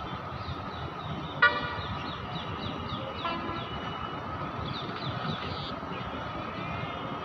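Outdoor traffic noise with a short, loud vehicle horn toot about one and a half seconds in and a fainter toot near three and a quarter seconds, over a steady background rumble and faint high chirps.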